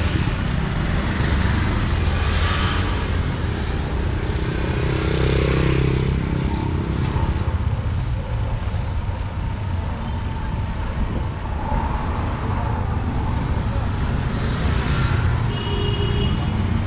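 Street traffic: motor vehicle engines running and passing, a steady low rumble that swells and fades as vehicles go by.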